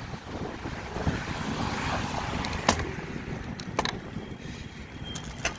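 Wind buffeting a handheld phone's microphone while riding a bicycle, a steady rumbling rush with a few sharp clicks in the second half.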